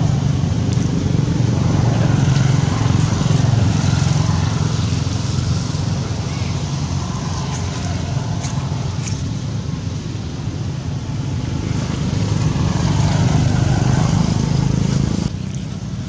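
Steady, loud low rumble of outdoor background noise with indistinct voices mixed in, dropping in level shortly before the end.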